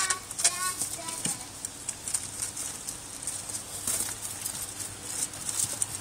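Rabbits chewing kale leaves: quick, irregular crisp crunching clicks. A child's voice is heard briefly in the first second.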